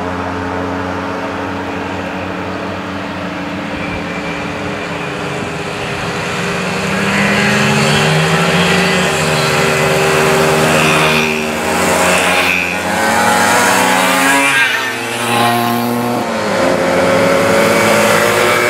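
Several small two-stroke moped engines running together in a passing procession. They get louder from about seven seconds in as the riders come close and go by, their pitches overlapping and shifting as each one passes.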